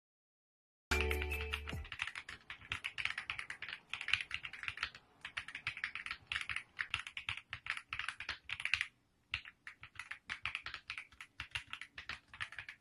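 Rapid, irregular clicking, many clicks a second, with a brief pause about nine seconds in. It begins about a second in, together with a short steady low tone.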